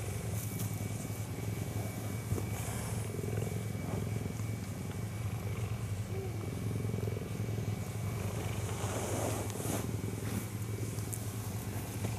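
Cheetah purring steadily, a continuous low rumble, while it nuzzles a person's head, with occasional brief scratchy rustles over it. A hand-reared cheetah purring like this is showing contentment and affection toward a person.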